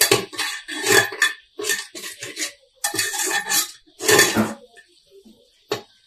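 Steel slotted spatula scraping and clinking against the inside of an aluminium pressure cooker as thick onion-tomato masala is stirred and fried on full flame: repeated short scraping strokes, with a brief pause near the end.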